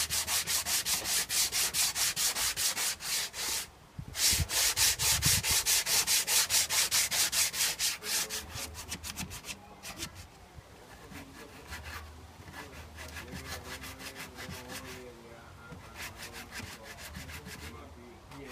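Sandpaper rubbed by hand back and forth over a car's painted body panel in quick, even strokes, about five a second. There is a brief pause about four seconds in, and the strokes get quieter and more broken in the second half.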